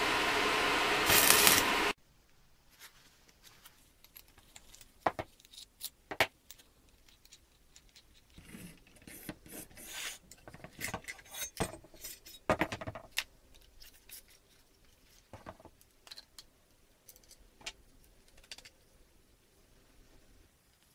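An angle grinder cutting metal, stopping abruptly about two seconds in. Then scattered clicks, knocks and rubbing as the plastic and metal parts of a Dremel WorkStation 220 drill stand are handled and taken apart.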